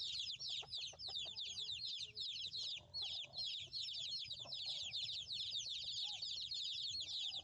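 A flock of birds chirping without pause: a dense chorus of short, high chirps that slide downward, many a second, the kind of steady peeping heard from a brood of chicks.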